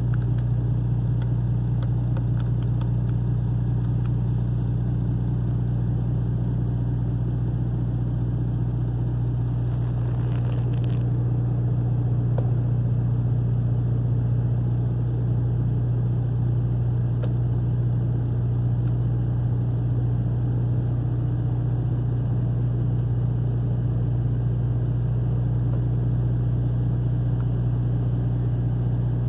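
Semi truck's diesel engine idling steadily, heard from inside the cab, a constant low hum. The idle speed holds at about 700 rpm and does not rise while the cruise-control buttons are pressed: the raised-idle override is locked out on this truck.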